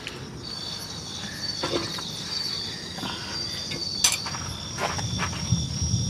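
Night insects trilling steadily in a high, pulsing chorus. A few sharp metal clicks come from tongs on a grill grate as meat is turned, the loudest about four seconds in.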